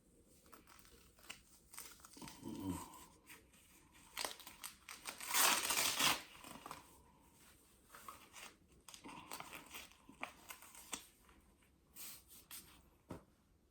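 Anti-snoring chin strap being adjusted and tightened around the head: rustling fabric, small clicks, and one ripping sound about five seconds in, the loudest moment.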